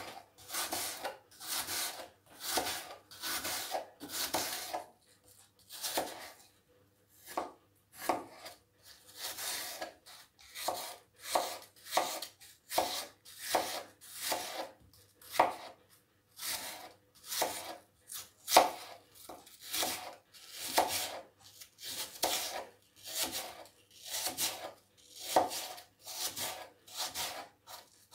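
Kitchen knife slicing peeled apples on a plastic cutting board: a long run of short cuts, about one or two a second, each as the blade passes through the apple and meets the board.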